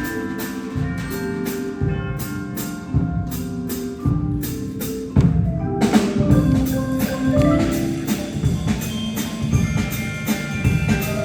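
High school concert band playing, with percussion strokes keeping a steady beat under sustained notes; the ensemble grows louder about five seconds in.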